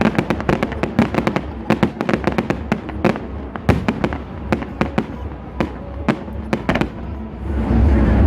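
Fireworks going off in a rapid, irregular run of sharp bangs and crackles. Near the end the bangs thin out and a louder, steady low sound swells in under them.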